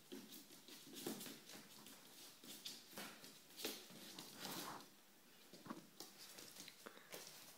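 Yorkshire terrier puppies scampering and scuffling on a wooden floor as they chase a ball: faint, irregular pattering and scraping of paws and claws.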